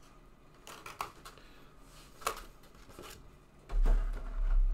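Trading-card packaging and cards being handled: a few light clicks and rustles, then a dull low thump with a rumble near the end, the loudest sound.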